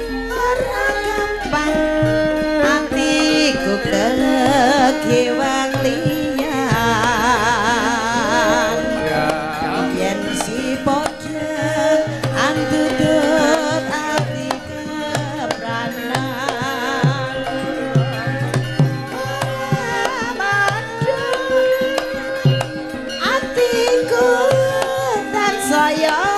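Javanese gamelan ensemble playing: bronze metallophones and gongs with steady kendang drum strokes, under a woman's singing voice with a strong wavering vibrato.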